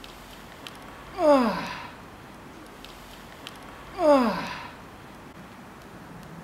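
A man's voiced exhalations of effort, each falling in pitch, twice about three seconds apart, one with each bodyweight squat: the sounds of a tiring body near the end of a 150-squat set.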